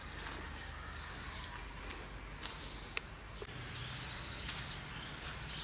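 Insects keeping up a steady, high-pitched drone over faint outdoor background noise, with a single sharp click about three seconds in.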